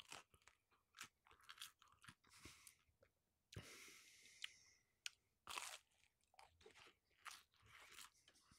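Close-miked chewing of a slice of pizza whose crust has been crisped in an air fryer: faint, irregular crunches as the crust is bitten and chewed.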